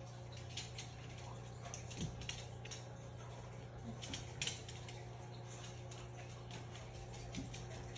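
Small dogs' claws clicking irregularly on a hardwood floor as they walk about, with a louder click about two seconds in and another about four and a half seconds in, over a low steady hum.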